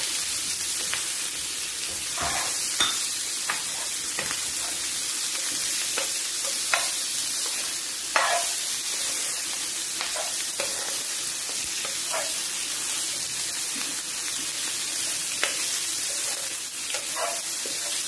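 Chunks of onion, capsicum and tomato sizzling in oil in a frying pan, with a steady hiss. A plastic spatula stirs them, scraping and tapping against the pan every second or two.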